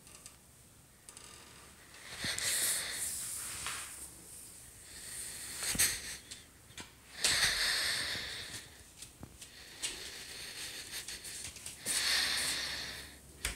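A person breathing close to the microphone: several breathy rushes, each about a second long, with a few soft knocks of footsteps going down stairs and onto a wooden floor.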